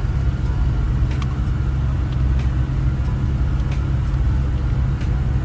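Steady low drone of a turbocharged pickup's engine and road noise, heard from inside the cab while driving, with a few faint light ticks.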